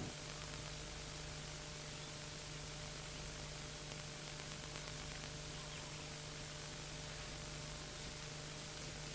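Steady hiss with a faint low hum: the background noise of an old video recording, with no other sound standing out.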